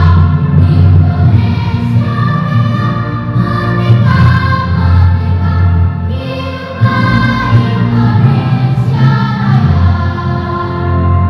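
Elementary-school children's choir of boys and girls singing together, holding long sustained notes that move from pitch to pitch.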